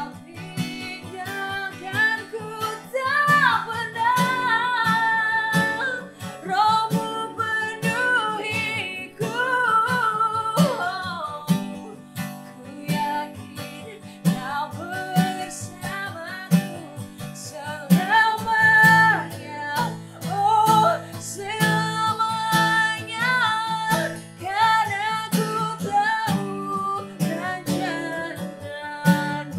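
Slow worship music: an acoustic guitar strummed and picked, with a voice singing a gliding melody over it from about a second in.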